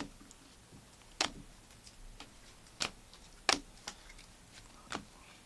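Stack of glossy Panini Optic trading cards being thumbed through by hand, the cards flicking and snapping against each other in sharp, irregular clicks, about five loud ones with fainter ones between.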